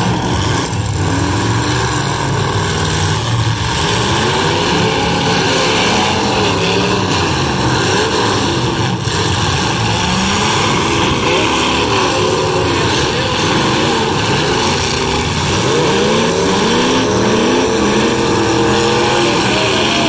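Several unmuffled demolition derby hobby stock cars revving hard, their engine notes rising and falling over one another as they reverse and ram, with a single knock about nine seconds in.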